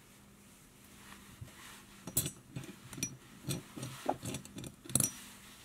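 Small hard clicks and clinks of fly-tying tools being handled at the vise. The clicks come in a quick irregular run, starting about two seconds in and lasting nearly to the end.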